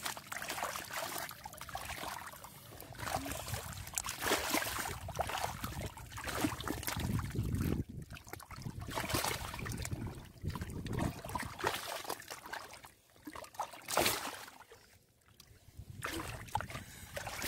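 Hands working through shallow muddy water to grab a fish: irregular wet sloshing and splashing, with one sharper splash about fourteen seconds in.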